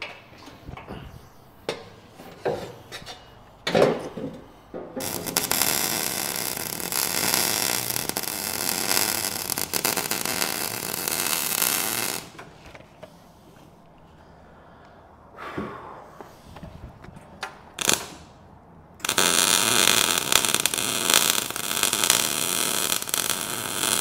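A power tool cutting sheet metal to size in two long, loud runs, the first about five seconds in and lasting about seven seconds, the second starting about nineteen seconds in. Knocks and clatter of the metal being handled come between them.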